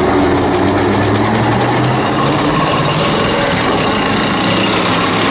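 Leclerc main battle tank driving past, its engine and tracks making a loud, steady mechanical noise.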